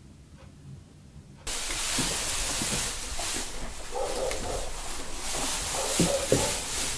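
A wall clock ticking faintly about once a second, then a sudden loud dry rustle of hay being pitched down from a barn loft, with a few short hen clucks partway through.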